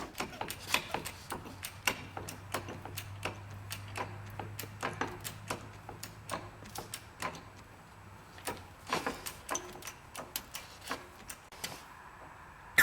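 Irregular light clicks and ticks, like small tool or metal contacts, over a steady low hum.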